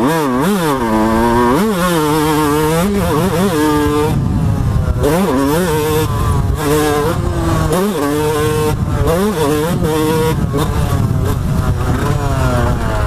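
2006 Yamaha YZ125's 125 cc two-stroke engine revving hard under riding, its pitch climbing and falling again and again as the throttle is opened and chopped and the gears change, with a few stretches held at a steady high note.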